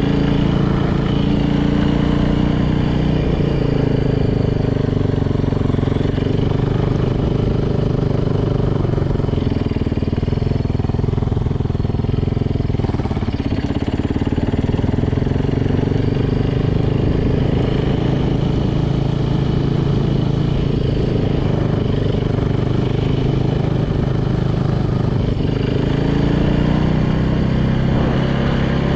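Freshly rebuilt Yamaha YZ450 single-cylinder four-stroke dirt-bike engine running on the move, its pitch rising and falling with the throttle: it drops a few seconds in, stays lower around the middle, and climbs again near the end.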